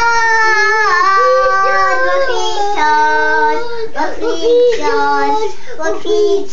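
Young children singing loudly in long, drawn-out held notes that slide down in pitch, with short breaks between phrases.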